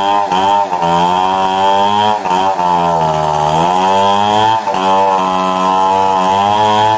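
Stihl 070 two-stroke chainsaw running at high revs while cutting a tree, its pitch sagging about three seconds in and then climbing back, with a few brief dips in speed.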